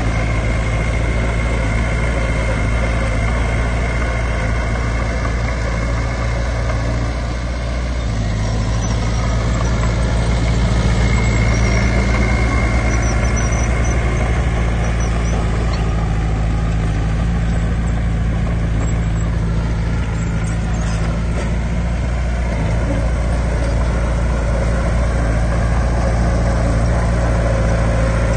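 Heavy diesel engine of earthmoving equipment running steadily. It eases off briefly about seven seconds in, then picks up again.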